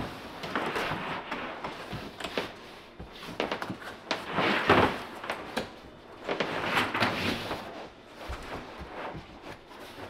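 Ditra XL plastic tile underlayment membrane being unrolled and pressed down by hand onto fresh thinset: irregular rustling and rubbing that comes in several swells, the loudest about halfway through.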